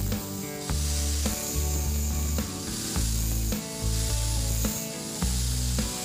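Angle grinder's abrasive disc grinding a steel drill bit held against it, a steady rasping hiss, with background music playing over it.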